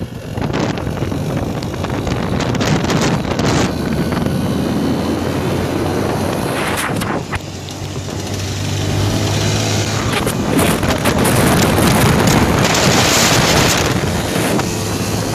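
Wind buffeting the microphone on a moving motorcycle, over a steady motorcycle engine drone and road noise.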